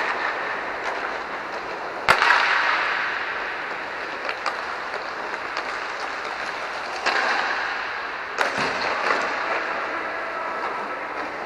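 Inline hockey play in an echoing rink: a steady background hiss of skating and play, broken by a few sharp cracks of stick and puck that ring on in the hall. The loudest crack comes about two seconds in, and two more come later.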